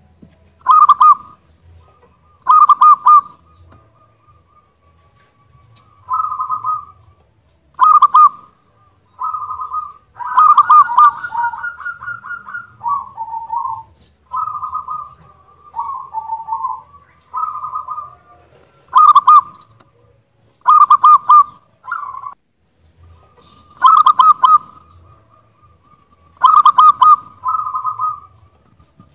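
Zebra dove (perkutut) singing: a long string of rapid rolling coo phrases, one every second or two, with a longer trilled run about ten seconds in. The loudest phrases are very loud.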